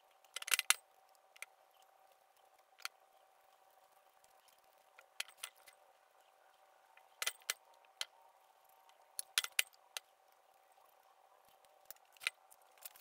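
A paintbrush daubing paint-stripping gel onto a cast-iron drill press head, with the casting and brush being handled: irregular soft clicks and taps, a few in quick clusters, over a faint steady hum.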